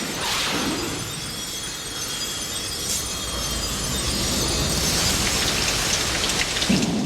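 Sound-effects passage of swept whooshes and a noisy hiss. The hiss builds about two-thirds of the way in into a bright, crackling, rain-like texture.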